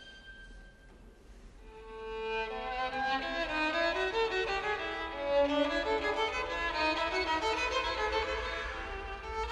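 Solo violin playing a melody with the ensemble, quiet at first and swelling in about two seconds in.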